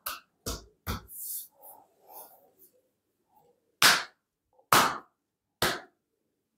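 Open hand slapping a man's bare back in percussive massage of the back muscles. Three quick slaps come in the first second, then three louder ones about a second apart near the end.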